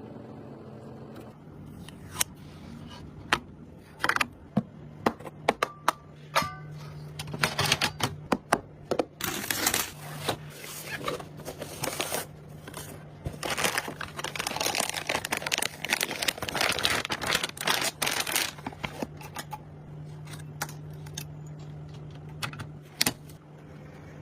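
Rapid, irregular clicks and clatter of small hard parts being handled, densest in the middle, over a steady low hum.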